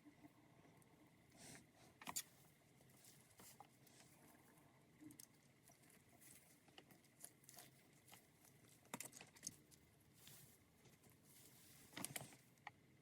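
Faint, scattered clicks and light taps of small objects being handled, with a few sharper ones about two, nine and twelve seconds in, over a faint steady hum.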